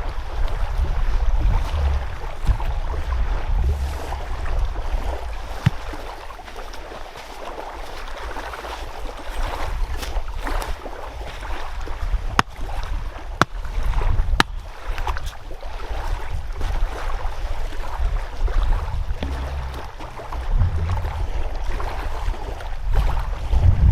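Water lapping and sloshing at the shore, with wind rumbling on the microphone. A few sharp clicks or snaps come in the middle.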